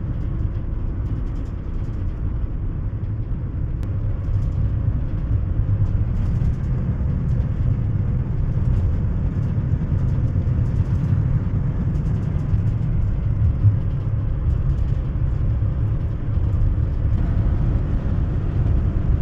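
Steady low rumble of road and engine noise from a moving vehicle, heard inside the cabin.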